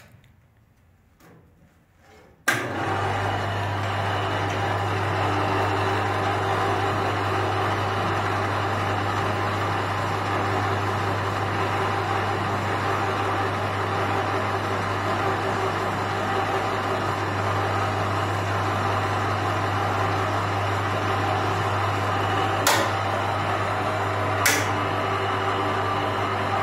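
Electric drive motor of a Tsepon Master profile pipe bender on a direct-drive frame switches on about two and a half seconds in and runs steadily with a low hum, turning the chain and rollers as a profile tube is rolled into an arc. Two sharp clicks near the end.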